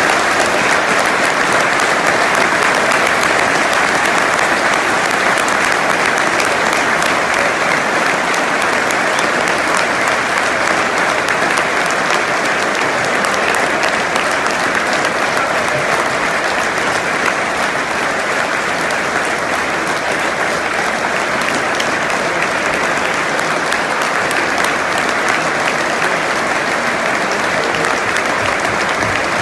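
A full football-stadium crowd clapping steadily in a dense, unbroken wash of applause: a minute's applause in tribute.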